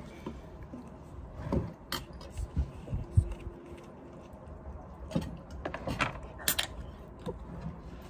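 Scattered light clinks and knocks of cutlery and dishes on a table, the loudest a dull knock about three seconds in, with a few sharper clinks later.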